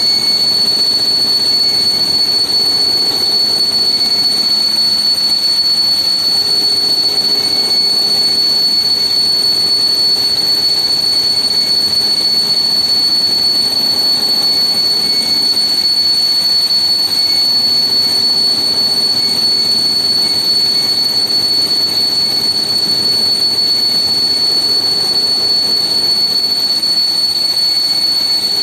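Haas VM-6 CNC vertical milling machine running, a steady high-pitched whine over a machining hiss that holds unchanged throughout.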